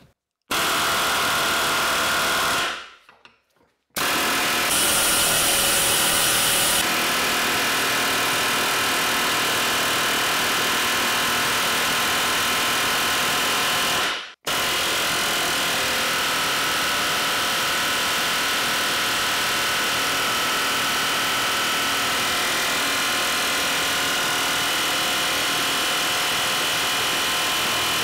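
Pneumatic air hammer rattling continuously, driving an injector removal tool against a diesel injector clamped in a vise. It runs in bursts: about two seconds, a short pause, about ten seconds, a brief break, then a long run.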